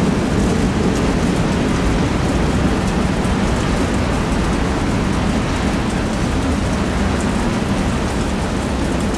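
Freight train cars rolling past: a steady low rumble of wheels on rail with a hiss over it.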